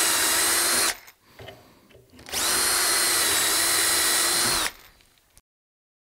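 Cordless drill boring dowel holes through a doweling jig's guide bushing into wood, running at a steady pitch in two runs, one hole after the other: the first stops about a second in, the second starts about two seconds later and runs for over two seconds before stopping.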